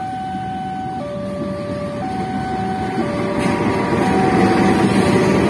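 Railway level-crossing warning alarm, a two-tone signal switching between a higher and a lower tone about once a second. A CC206 diesel-electric locomotive hauling a passenger train runs past close by, its engine hum and wheel noise growing louder from about three seconds in.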